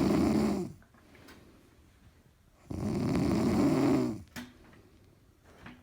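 A person snoring very loudly: one snore trails off within the first second, and another low snore comes about three seconds in and lasts about a second and a half.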